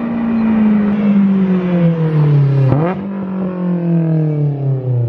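Honda S2000's four-cylinder engine through a Tomei single-exit cat-back exhaust, very loud, its note falling steadily in pitch. About halfway through there is a sharp pop as the revs jump back up, then the note falls again.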